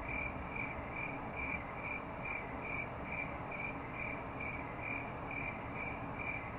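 A cricket chirping steadily, short high-pitched chirps at about two and a half a second, over a faint low hum.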